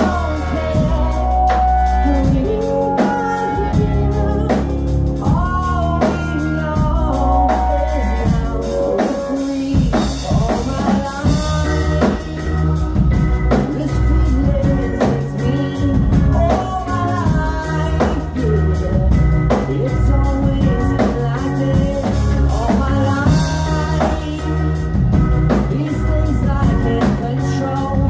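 Live band playing a rock song: a voice over acoustic and electric guitars, keyboard and a drum kit.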